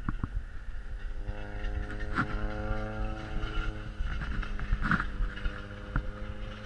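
A single race car's engine running hard as it laps a short paved oval and passes close by. The note climbs a little and then holds steady, over a low rumble.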